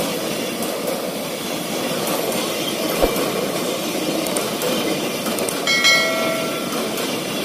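Passenger train coaches rolling slowly past on a loop line: a steady rumble and rattle of wheels on rail. There is a single sharp knock about three seconds in and a short high-pitched squeal about six seconds in.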